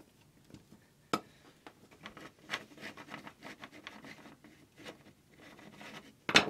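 Screwdriver turning the clamp screw of a cable connector on a metal conduit box: scratchy metal-on-metal scraping with scattered small clicks, a sharp click about a second in and a louder click near the end.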